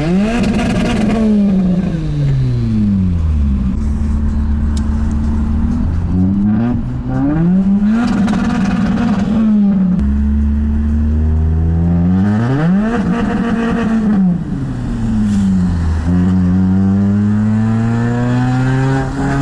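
Lada Priora's four-cylinder engine with the muffler removed, so the exhaust runs straight out and loud. The revs rise and fall back about four times, settling low between the falls, and near the end climb slowly in a long acceleration.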